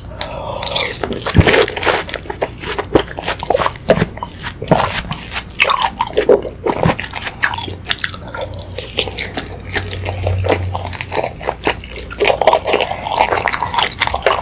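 Close-miked eating of watermelon fruit punch: biting and chewing soft, juicy watermelon and fruit chunks, with wet squishing and irregular clicking mouth sounds.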